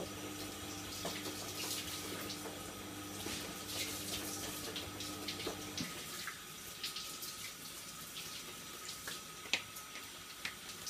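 Water running from a kitchen tap into the sink as something is rinsed under it, with scattered light clicks and knocks. A steady low hum cuts off suddenly a little past halfway.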